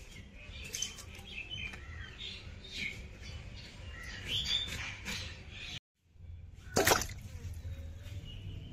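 Small birds chirping intermittently over a low steady background hum. The sound drops out completely for a moment just before six seconds in, and about a second later there is one loud, short, harsh noise.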